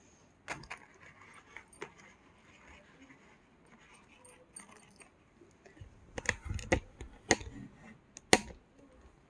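Metal jewellery clinking and clicking as it is handled: a few sharp clicks at first, then a quick run of clicks and knocks in the last few seconds, the loudest near the end.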